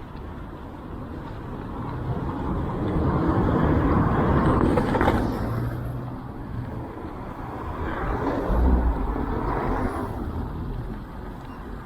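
Two cars passing by, each a swell of engine and tyre noise that builds and fades, the first loudest about five seconds in, the second around nine seconds.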